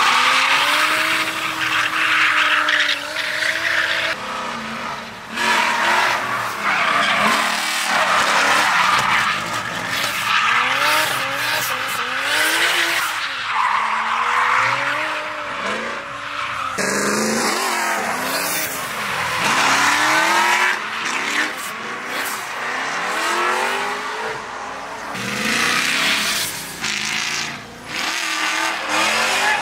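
Drift cars sliding in tandem: engines revving up and down repeatedly over continuous tyre squeal and screech.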